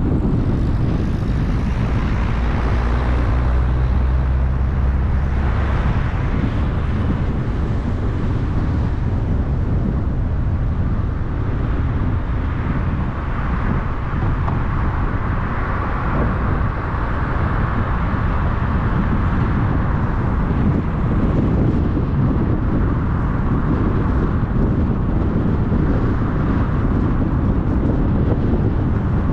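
Steady road noise of a car driving on a highway: continuous tyre and wind roar, with a low hum that is strongest for the first few seconds.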